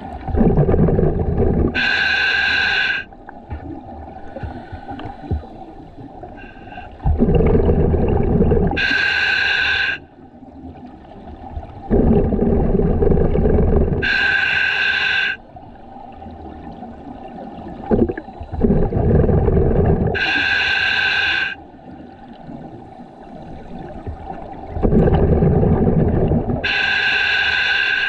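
Scuba diver breathing through a regulator underwater, five breaths about six seconds apart. Each breath is a loud low rush of bubbles and air, followed by a shorter, higher hiss from the regulator.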